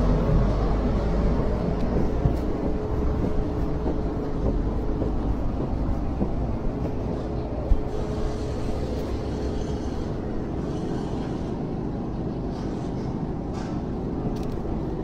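Steady outdoor street noise with a low rumble, and a single sharp knock about eight seconds in.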